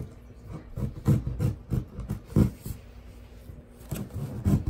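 Utility knife cutting through corrugated cardboard: a series of short scraping strokes, several in quick succession, then a pause and another stroke near the end.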